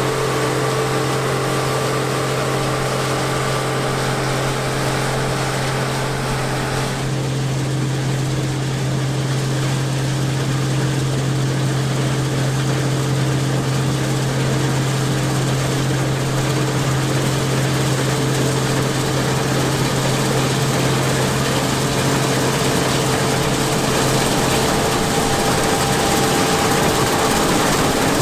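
Modern combine harvester running steadily while harvesting soybeans, a constant engine hum with higher tones above it; some of the higher tones drop out about seven seconds in.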